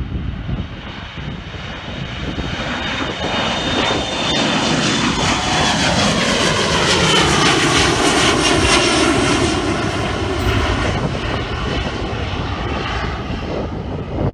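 Twin-engine regional jet's turbofans at takeoff power as it climbs out overhead: a loud jet roar with a whine whose pitch sweeps and bends as the plane passes. It is loudest about halfway through and eases off near the end.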